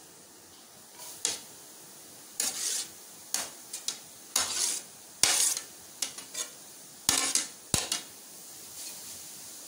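A metal spoon scraping grated pumpkin off a plate into a metal cooking pot, in a dozen or so short, irregular scrapes and clinks.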